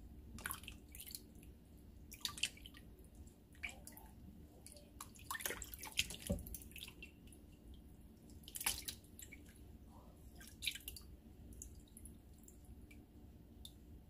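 Water splashing and dripping as bitter bolete mushrooms are rubbed clean by hand in a plastic tub of water: irregular small splashes and drips, the loudest about six seconds in and again near nine seconds.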